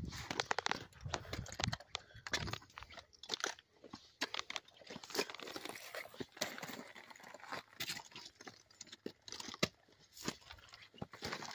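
Footsteps crunching on loose rock and gravel in an irregular series of steps and scuffs, with small stones clicking underfoot.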